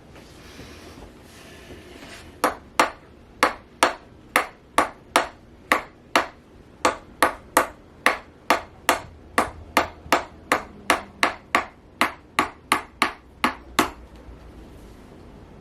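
Chiropractic activator adjusting instrument firing about thirty sharp clicks at about three a second. They start a couple of seconds in and stop about two seconds before the end. Each click is the instrument's spring-loaded thrust delivered to the patient.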